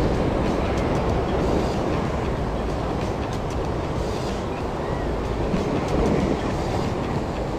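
Surf breaking and washing over shore rocks, with a steady low rumble of wind on the microphone, and a spinning reel being cranked.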